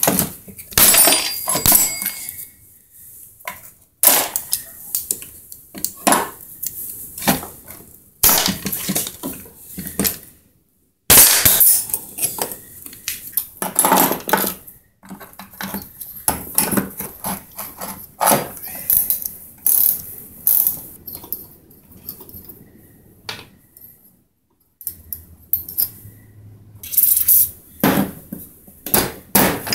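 Hand tools and loose metal engine parts clinking, clattering and knocking on a workbench as a chainsaw engine is taken apart, in quick irregular bursts. A hammer strikes several times near the end.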